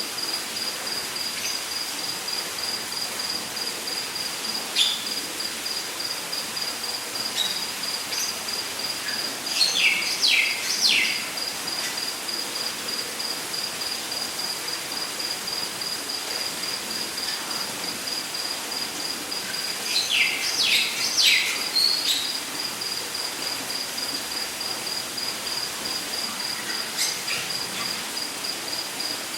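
Rainforest ambience: an insect trills steadily on one high, rapidly pulsing note over a steady hiss. A bird twice gives a quick run of three or four falling whistled calls, about a third and two thirds of the way through, with a few single chirps in between.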